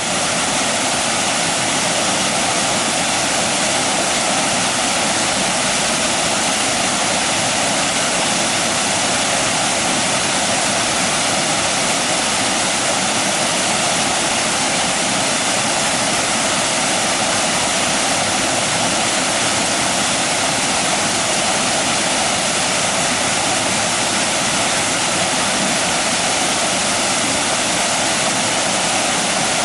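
Water falling over a small weir in a concrete irrigation channel: a steady, loud rushing splash that runs on unchanged.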